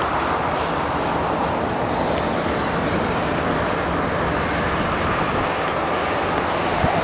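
Steady rushing noise of a vehicle on the move, heard from inside the cab, with a brief tick just before the end.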